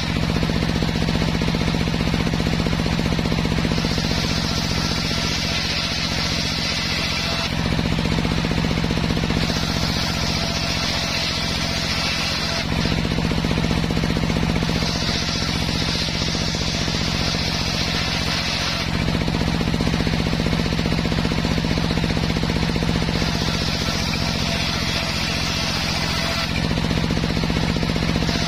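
Homemade bench circular saw running steadily while ripping waru (sea hibiscus) wood into battens. Four cuts of a few seconds each, each a hissing rasp as the blade goes through the wood, with the steady drone of the saw's drive between them.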